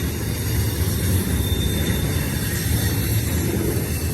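BNSF intermodal freight train rolling past on a curve: a steady low rumble of cars and wheels on the rails, with a faint high-pitched wheel squeal through the middle.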